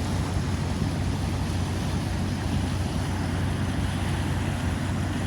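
Flash floodwater rushing down a creek channel: a steady low rumble with a hiss of churning water over it, unchanging throughout.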